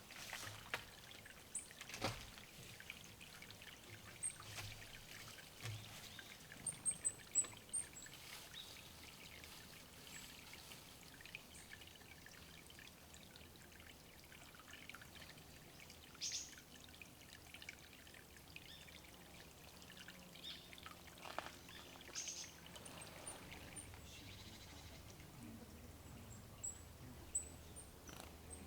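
Small forest birds giving short, very high, thin calls now and then, over faint water sounds, with a few brief sharp noises.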